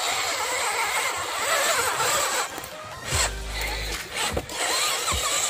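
Small electric motor and gears of an RC scale crawler whining, the pitch rising and falling as the throttle changes, with a few sharp clicks.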